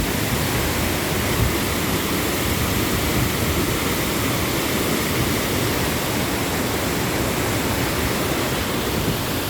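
Steady rush of water falling at Wahkeena Falls, an even, unbroken noise.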